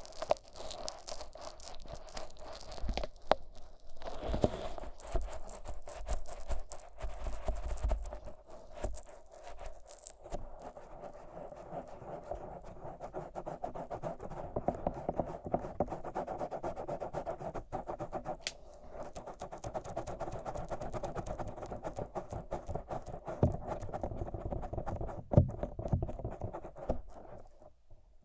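Fingers rubbing and massaging thick Vaseline over the silicone ears of a 3Dio binaural microphone, a continuous sticky, scratchy rubbing close in each ear. There are occasional thumps in the first several seconds. It drops away briefly just before the end.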